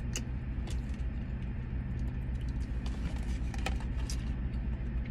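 Steady low hum of a car idling with the air conditioning running, heard inside the cabin. Scattered light clicks and rustles of a plastic fork and cardboard box being handled.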